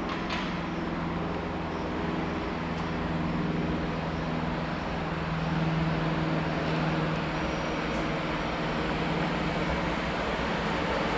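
Siemens Vectron class 193 electric locomotive hauling a freight train toward the listener at low speed: a steady electric hum of several tones over wheel and rail noise, growing a little louder as it nears.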